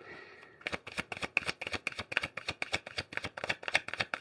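Deck of tarot cards shuffled overhand by hand. It opens with a brief soft swish, then becomes a quick, even run of card snaps, several a second.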